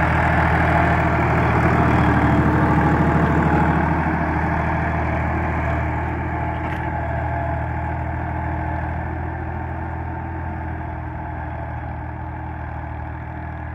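Massey Ferguson 260 tractor's three-cylinder diesel engine running steadily under load while pulling a cultivator. It is loudest about two seconds in and grows fainter as the tractor moves away.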